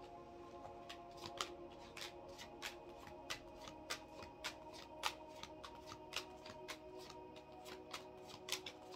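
Playing-card-sized oracle cards being dealt one at a time from a deck onto a table: a string of light card snaps and slaps, two or three a second. Quiet background music with long held notes underneath.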